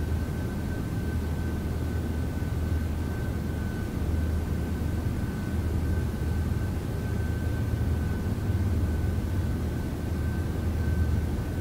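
Steady low machine-like hum with a thin, constant high tone above it.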